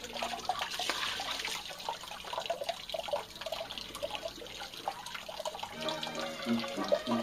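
Water splashing and trickling in a concrete washing sink as fish are rinsed by hand, with small knocks and scrapes against the sink. Background music comes back near the end.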